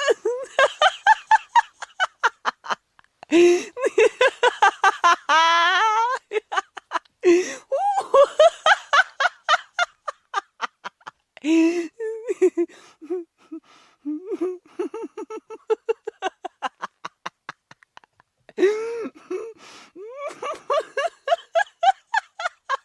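Human laughter in repeated bouts of rapid pitched 'ha' pulses, rising and falling in pitch, with short breaths and pauses between bouts.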